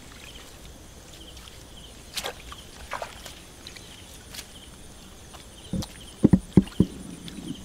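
Bare feet stepping in shallow mud and clumps of grass being pulled up and handled, mostly faint, with a quick run of four or five dull thumps about six seconds in.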